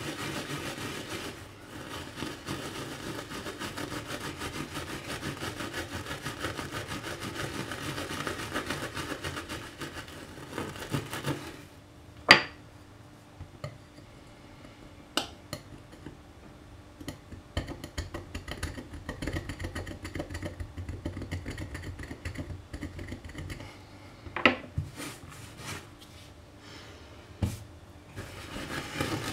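Steel wool scourer scrubbing melted plastic on a glass-ceramic hob, a dense rasping scrub. It stops about twelve seconds in with a sharp click. Then comes a quieter stretch of a knife blade scraping the hob, with scattered light clicks and a few louder taps.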